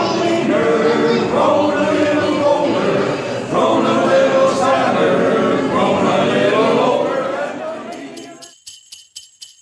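A men's a cappella chorus sings sustained harmonies that die away about eight and a half seconds in. Near the end, a quick run of about a dozen bright jingle-bell shakes rings out.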